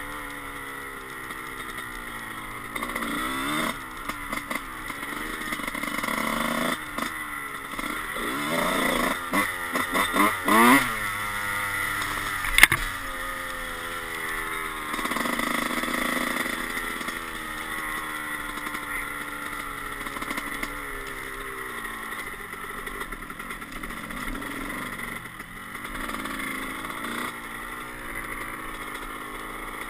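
Dirt bike engine ridden on a trail, heard from the rider's camera, revving up and falling back again and again as the throttle opens and closes, with quick rising revs near the middle. A single sharp knock stands out about halfway through.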